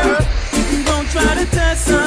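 Reggae dubplate music: a heavy bass line under a pitched melody that bends and wavers.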